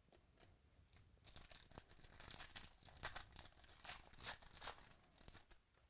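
Foil trading-card pack (2018 Chronicles Baseball) being torn open, the wrapper crinkling in a quick run of faint crackly rustles that start about a second in and stop just before the end.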